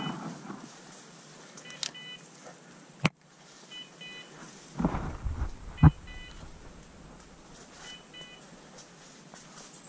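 A hunting dog's beeper collar sounding a short double beep about every two seconds, the slow run-mode signal that the dog is still moving. About five seconds in there is a patch of crashing through brush with a sharp twig snap, the loudest sound, and a single sharp click comes about three seconds in.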